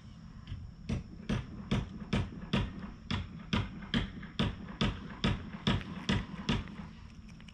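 A hand patting a cat's lower back in a steady rhythm: about fourteen soft pats, a little over two a second, starting about a second in and stopping near the end.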